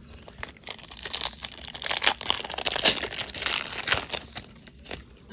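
Baseball card pack wrapper crinkling and tearing as it is ripped open, loudest from about one to four seconds in.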